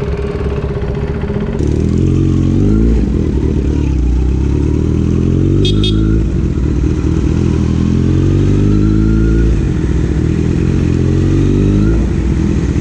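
Motorcycle engine accelerating through the gears, heard from the rider's seat. The engine note climbs, drops at each upshift and climbs again, several times over.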